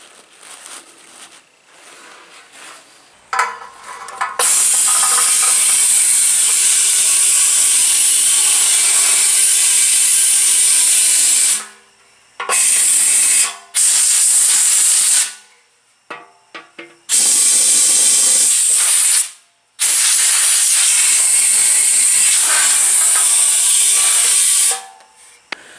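Compressed air from a blow gun hissing into a small metal scooter fuel tank to blow out loose rust and crud, in five loud bursts of a few seconds each with short pauses between. Light rattling from handling the tank before the first burst.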